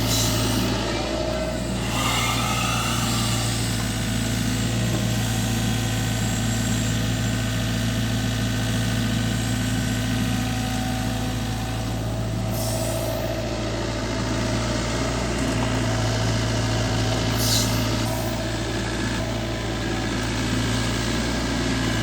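Heavy diesel engine running steadily at low revs, with three short hisses: one near the start, one about twelve seconds in, one about seventeen seconds in.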